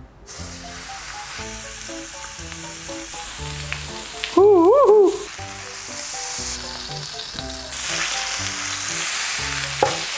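Thick bone-in tomahawk steak sizzling on a hot electric grill plate, starting as it is laid down and growing louder about eight seconds in. Light background music plays under it, and a brief wavering tone stands out about four and a half seconds in.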